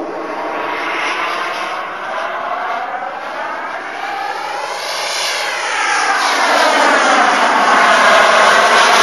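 Radio-controlled Eurofighter model jet flying past overhead, its jet engine making a continuous rushing whoosh whose tone sweeps up to a peak about halfway through and back down as it passes, growing louder near the end.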